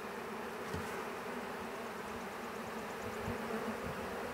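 A large swarm of honey bees buzzing steadily around an open hive box: a continuous dense hum of many wings from bees that are hot and stirred up after being shaken into the hive.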